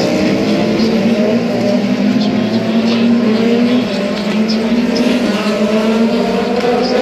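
A line of prototype race cars passing in close succession, several engines running together. Their pitch climbs slowly as they pull away.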